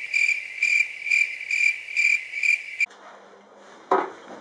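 Cricket chirping in an even pulse of about two chirps a second, starting abruptly and cut off sharply about three seconds in. A short thump near the end.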